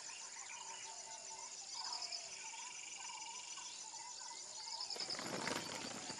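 Crickets and other insects trilling and chirping steadily. From about five seconds in, a rough, clattering crunch of a wheeled suitcase rolling over a dirt road rises above them.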